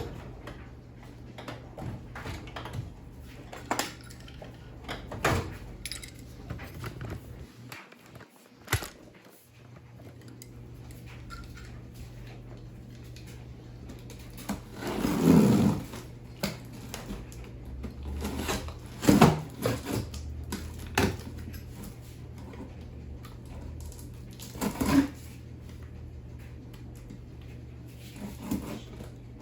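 Handling noise of a cardboard box being cut open and unpacked: scattered clicks and knocks, with a few louder bursts of rustling and scraping, over a steady low hum.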